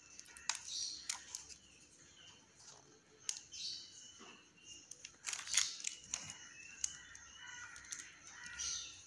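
Faint crinkling and scattered clicks of greased butter paper and a plastic piping bag as batter is squeezed out in drops onto the paper, loudest a little past five seconds in.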